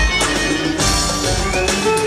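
Instrumental music from a band, with sustained melody notes over a beat of drum hits, in a passage where the singer is not singing.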